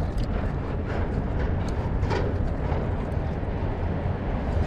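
Steady low wind rumble on the microphone, with a brief faint noise about two seconds in.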